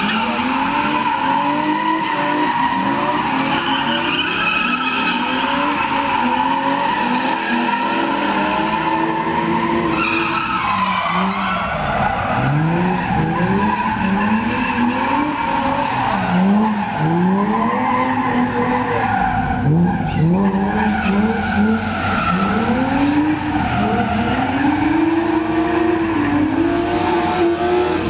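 Drift cars' engines revving hard, the revs rising and falling over and over as the cars slide, with tyres squealing under them.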